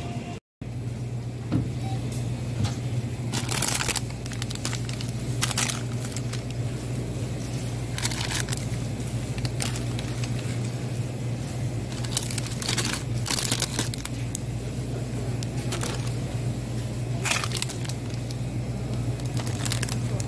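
Plastic ice cream bar wrappers crinkling in short bursts as they are handled and put into a plastic basket, over a steady low hum.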